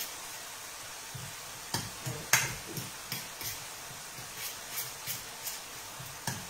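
Hands kneading a moist ground-meat, egg and cheese filling in a glass bowl: scattered soft wet squishes and light clicks, with a sharper click a little over two seconds in.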